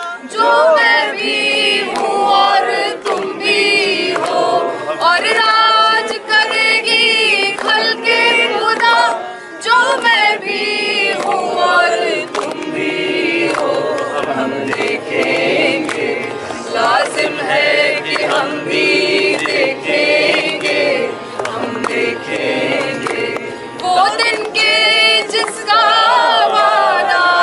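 A group of voices singing an Urdu song in chorus over steady instrumental backing.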